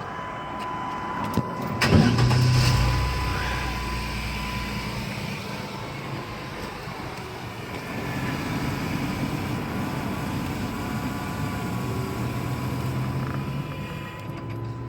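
1998 Chevrolet Astro van's 4.3-litre V6 starting about two seconds in, loudest for the first few seconds, then settling to a steady idle. The fuel pump is running again after a fuse-box fault rather than a failed pump.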